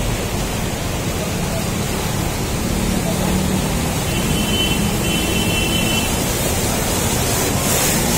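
Floodwater churning and splashing as a city bus ploughs through it, pushing a bow wave, with the bus's diesel engine running low underneath. It grows louder toward the end as the bus comes close.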